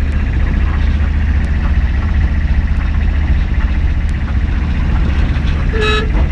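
Steady low rumble of a moving motor vehicle with road and wind noise, heard from inside the vehicle. A short, high beeping tone comes near the end.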